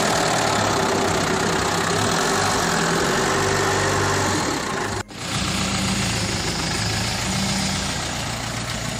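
Mahindra Bolero's engine idling steadily with the bonnet open, a constant low hum, briefly cut off about five seconds in before carrying on.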